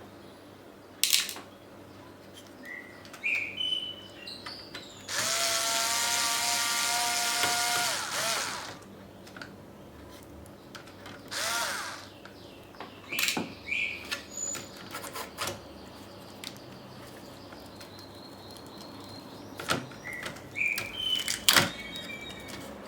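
Small electric screwdriver whining as it undoes a laptop's motherboard screws: one run of about three seconds and a shorter one, each spinning up and winding down. Sharp clicks and small knocks from handling screws and parts come between the runs.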